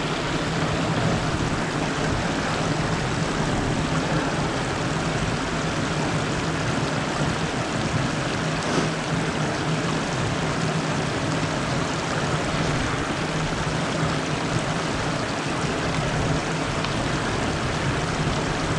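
Small river's water running steadily, a continuous rushing with a low, steady hum beneath it.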